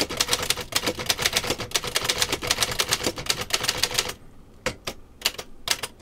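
Remington No. 10 manual typewriter being typed on: a fast, continuous run of key strikes clacking for about four seconds, then a few separate strikes near the end.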